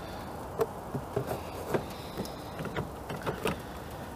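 A string of about ten irregular light clicks and knocks of plastic parts being handled: the air filter housing and intake duct of a Jeep Compass being fitted back into place.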